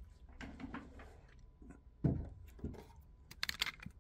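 Handling noise as a speaker cabinet is moved and set down on the floor: a dull knock about two seconds in, another shortly after, and a quick rattle of small clicks near the end.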